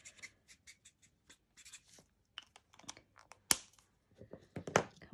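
Stampin' Blends alcohol marker nib scratching across cardstock in short colouring strokes. A sharp click comes about three and a half seconds in and another knock near the end, as the marker is handled and put down.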